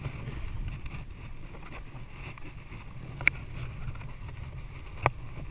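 Steady low rumble of a fishing boat at sea while a net is hauled by hand over its side, with two sharp knocks about three and five seconds in.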